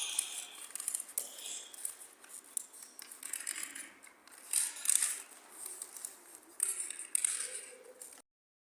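Scraping, scratching and clicking on the hard surfaces of an empty building, made by hand and struck or rubbed on the floor and walls: many short clicks with several rasping scrapes, the loudest about 4.5 to 5 seconds in. The sound cuts off suddenly near the end.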